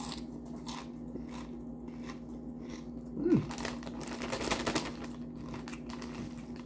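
Crunchy Doritos tortilla chips being chewed, then a foil-lined chip bag crinkling for about a second, a little past the middle. The loudest moment, just before the crinkling, is a short low voice sound falling in pitch, over a steady background hum.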